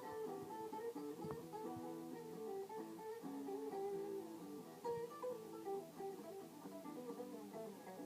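Guitar music, plucked and strummed, with several notes sounding together.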